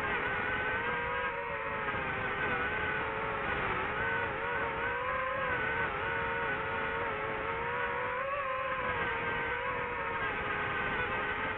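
DJI FPV drone's motors and propellers whining steadily, the pitch wavering up and down as the throttle changes.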